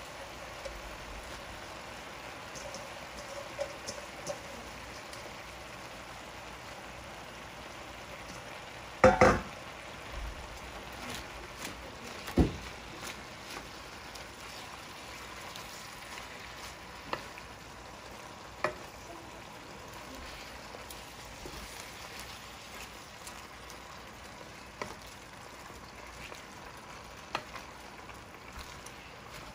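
Chopped bok choy sizzling in a hot frying pan as it is stirred with a wooden spatula. The spatula knocks against the pan now and then, loudest twice, about nine and twelve seconds in.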